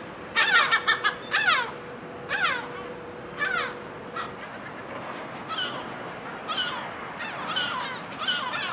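Gulls calling again and again: short, falling cries, several loud ones close together in the first couple of seconds, then fainter ones about a second apart.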